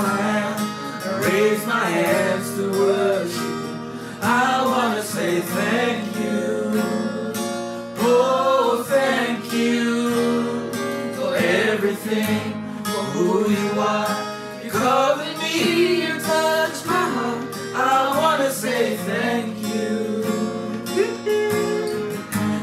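Acoustic guitar strummed steadily under several voices singing a slow gospel song.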